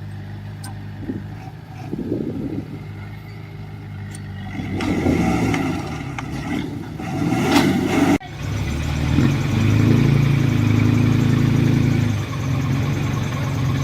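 Diesel engine of heavy construction machinery running and working under varying load. It breaks off abruptly about eight seconds in, then runs on steadier and louder, with a raised note for a few seconds.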